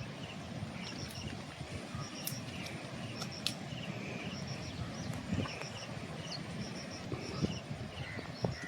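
Outdoor ambience: short high chirps repeating in quick groups of three or four, over a steady low rustling noise with a few sharp clicks.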